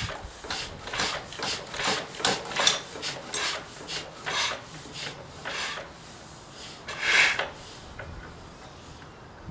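Rhythmic rasping, about two strokes a second, from hands working on a Lister stationary engine ahead of a cold start. The strokes thin out and stop about two seconds before the end.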